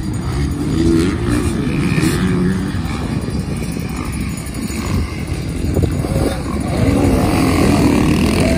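Motocross dirt bikes racing past, their engines revving up and down as the riders work the throttle. The engines grow louder about a second in and again near the end as the bikes pass close by.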